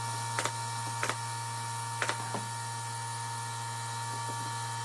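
Brad nailer driving nails into cedar boards: four short, sharp snaps in the first two and a half seconds, over a steady hum.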